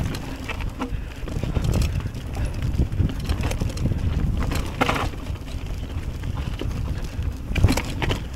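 Mountain bike ridden over a rough, stony trail: wind buffets the microphone and the bike rattles steadily, with a few sharper knocks from rocks, about a second in, around halfway and near the end.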